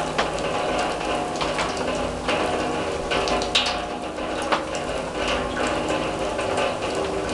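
Rain falling on an open steel drum and the surfaces around it: a steady patter with irregular sharper drops plinking on the metal, a few louder ones near the middle.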